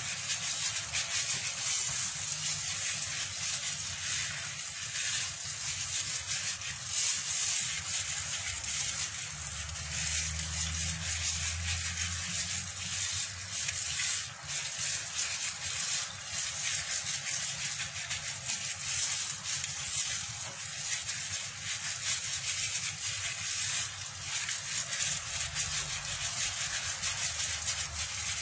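Wet squelching and rubbing of a plastic-gloved hand kneading sliced chicken breast in a wet marinade in a metal tray, a steady run of small squishes and clicks.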